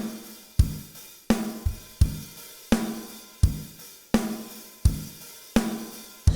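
Recorded drum kit playing a steady groove: kick and snare alternating about every 0.7 s under cymbals and hi-hat, run through a bus compressor whose sidechain filter has been set to favour the snare so that the kick hits pump it less.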